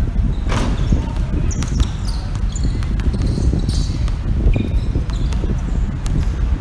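Basketball bouncing on an outdoor court in short, scattered thuds, with players' voices and a steady low rumble of background noise.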